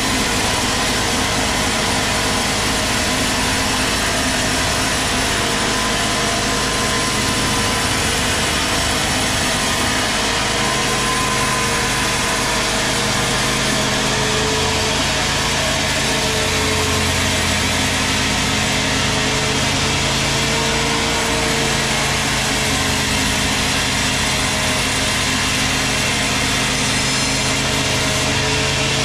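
Large sawmill band saw ripping lengthwise through a long teak log: a loud, steady mix of motor hum and the rasp of the blade in wood. The machine's pitch wavers slightly about halfway through.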